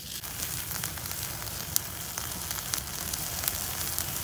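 Dry reed stalks burning on a wire grill over a roasting bird: a steady sizzling hiss with frequent sharp crackles and pops.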